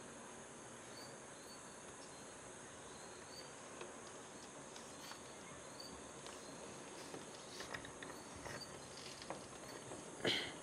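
Faint, steady chorus of night insects such as crickets, with small repeated chirps. A few light ticks come in the second half, and a brief louder sound comes near the end.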